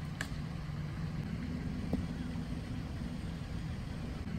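Steady low engine hum, like a motor idling, with a sharp click just after the start and a soft knock about two seconds in.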